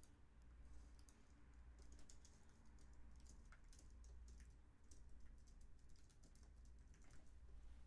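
Faint computer keyboard typing: irregular keystroke clicks over a low steady hum.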